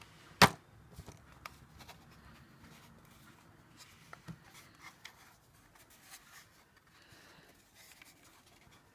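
Small plastic battery-powered handheld fan being handled, its head tilted on its pivot: one sharp plastic click about half a second in, then faint scattered taps and rubbing. The fan motor is not running.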